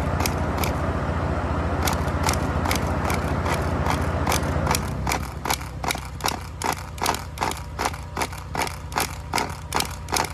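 Nitro RC car engine being cranked over without firing, a steady loud whirring that stops about five seconds in. The glow plug has been backed out a little because the owner finds the engine has too much compression. A regular clicking follows, about three clicks a second.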